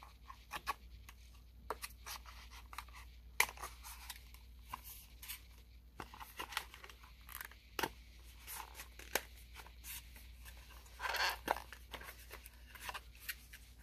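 Packaging of a vape cartridge being handled at close range: scattered small clicks and taps, with a short rustle about eleven seconds in.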